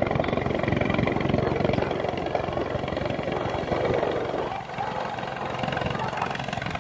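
Helicopter flying low overhead, its rotor chopping in a rapid steady beat. The sound drops a little about four and a half seconds in.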